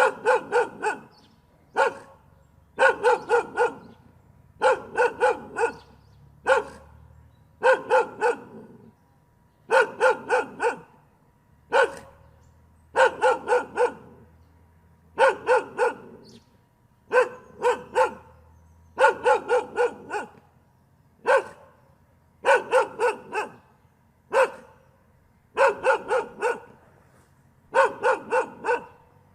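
A dog barking in quick volleys of three or four barks, a new volley about every two seconds.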